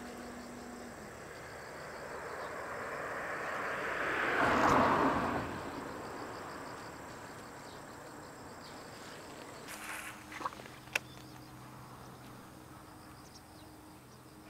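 Insects chirring steadily in the background. A broad rush of noise swells and fades about four to five seconds in and is the loudest thing, and a few sharp clicks come near the ten-second mark.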